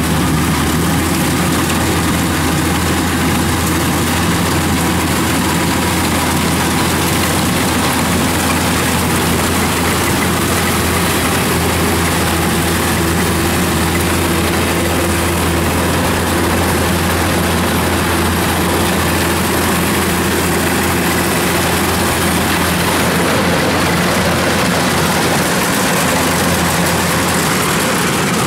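Kubota rice combine harvester's diesel engine and harvesting machinery running steadily under load as it cuts rice: a constant heavy drone with a wide mechanical rush over it.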